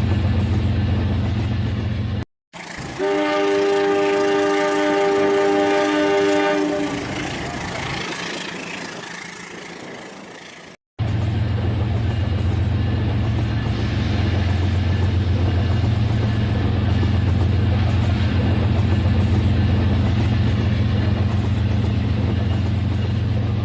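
Toy train's electric motor running with a steady hum and a fast rattle on the track. About two seconds in there is an abrupt cut, and a train horn sounds for about four seconds over a fading rushing noise. After a second cut, near the middle, the motor hum returns.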